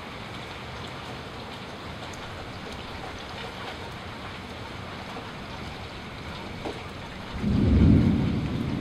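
Steady rain falling. About seven seconds in, a rumble of thunder swells up suddenly, peaks and begins to fade near the end.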